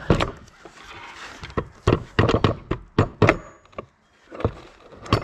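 Hammer blows on the gear shafts of a Volkswagen 020 manual transmission, driving them out of the case: a dozen or so sharp, irregular metal knocks, coming quickest in the middle.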